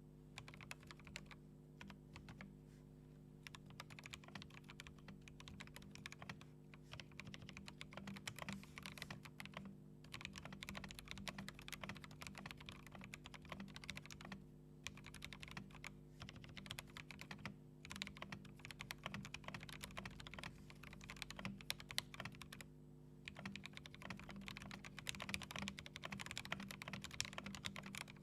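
Continuous fast typing on a mechanical keyboard with lubed Akko CS Jelly White linear switches, a steady stream of keystrokes broken by a few brief pauses.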